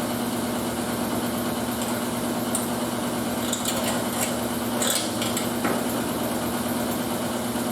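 Steady machine hum from shop equipment, with a few light metallic clicks and taps in the middle as a sheet-metal panel is handled and worked to sit flush.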